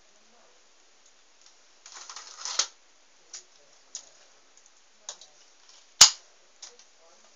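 Plastic LEGO pieces of a toy gun clicking and rattling as it is handled: a short rattling clatter about two seconds in, scattered single clicks, and one sharp loud snap about six seconds in.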